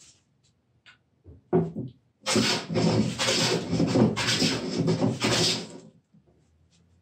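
Wooden jointer plane cutting shavings from a wooden workbench top while flattening it: a short scrape about a second and a half in, then about four seconds of continuous rasping planing strokes that swell and dip.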